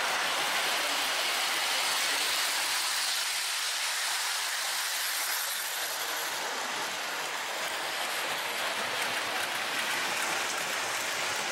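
Lionel O gauge model train rolling along the layout track: a steady running whir and hiss of wheels and motor.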